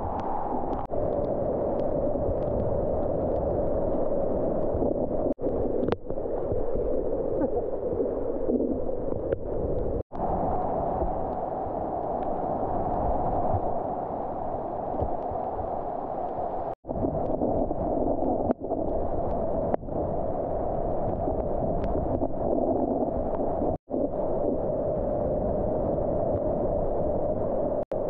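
Flooded whitewater rapids rushing around a kayak: a steady loud wash of turbulent water, cut by a few brief, sudden dropouts.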